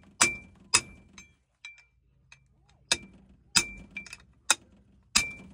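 Hammer blows on steel tooling: about ten sharp metallic strikes at an uneven pace, some much lighter than others, each with a short bright ring. The blows come while a tight flywheel nut on a rotary engine is being worked loose.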